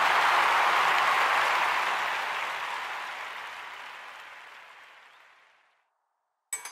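Recorded applause on the soundtrack as a song ends, steady at first and then fading out to silence over a few seconds. Near the end a new music track starts with sharp, rhythmic percussive clicks.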